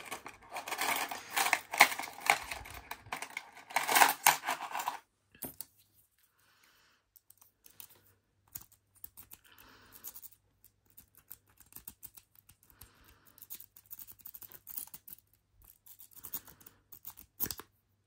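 Metal lock picks clattering and scraping: a dense, scratchy rattle for about the first five seconds, then sparse light clicks and scrapes as a multi-pick rake works the pins of a laminated steel padlock.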